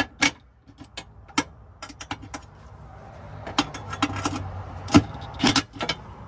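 Metal tools and hardware clinking and knocking: about a dozen sharp clicks at uneven intervals as bolts and sockets are handled on the underside of a car.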